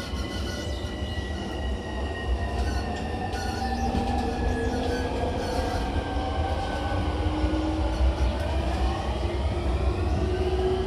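Traction motors and VVVF inverter of an E231 series 1000 electric train heard from on board while under power. Several high whining tones glide steadily downward for about eight seconds, then new tones begin to rise, over a steady low rumble of wheels on track.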